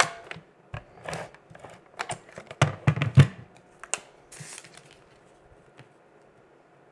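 Scotch Advanced Tape Glider adhesive gun clicking and knocking as it is pulled along a paper strip and set down on the cutting mat, with the loudest knocks about three seconds in. A short paper rustle follows as the strip is handled.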